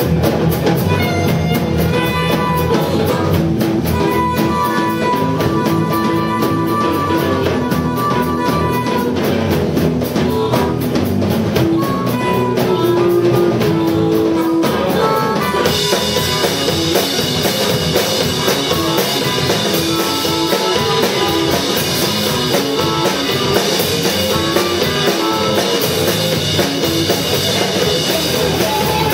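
Live rock band playing: a drum kit keeping a steady beat under electric guitar lines. About halfway through, the sound turns brighter and fuller.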